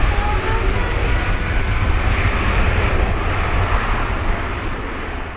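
An Airbus A350-900's two Rolls-Royce Trent XWB turbofans at takeoff thrust as the airliner rolls down the runway: a loud, deep, steady rumble with jet noise over it. It grows quieter near the end.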